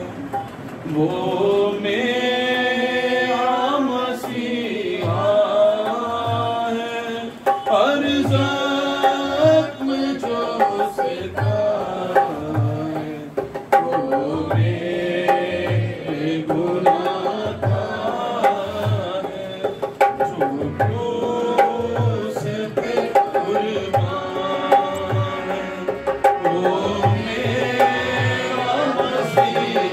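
Hindi Christian worship song: a man sings into a microphone over harmonium. About five seconds in a dholki joins with a steady beat of low bass strokes.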